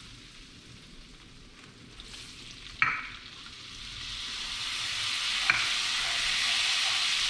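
Butter-flour meunière sauce sizzling in a skillet on a gas stove as it is stirred; the sizzle swells about four seconds in, once the liquid goes into the hot pan. A sharp knock comes near three seconds in and a lighter one a couple of seconds later.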